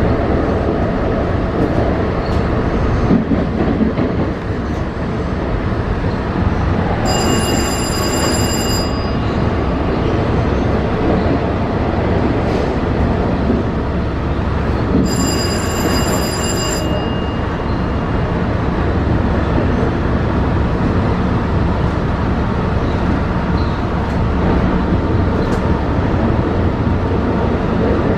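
LIRR M3 electric multiple unit running along the track with a steady rumble. Two high-pitched squeals, each about two seconds long, come about eight seconds apart.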